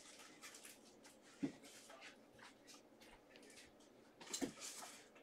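Faint handling noise of a stack of Panini Prizm football cards being thumbed through, with a sharp tap about one and a half seconds in and a short cluster of card snaps a little after four seconds.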